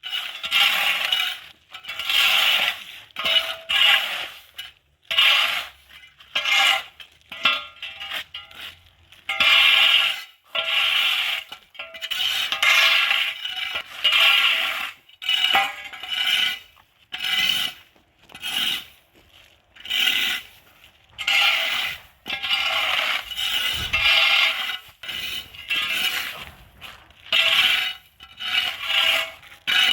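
Repeated scraping strokes, irregular, about one every half second to a second, with light clinks.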